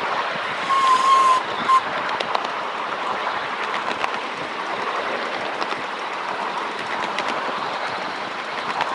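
Miniature 7¼-inch gauge ride-on train running along its track: a steady rumble of wheels on rail with faint clicks from the rail joints. About a second in, a high toot sounds, followed by a short second toot.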